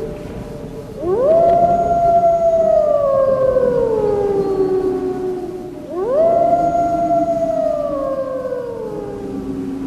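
Wolf howling twice: each howl rises quickly, holds, then slides slowly down over several seconds.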